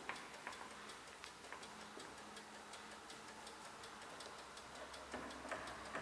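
Faint, steady fast ticking, about four or five ticks a second, with a few louder clicks and scrapes near the start and again near the end as a screwdriver backs out the T20 Torx screw that holds a car's exterior door handle.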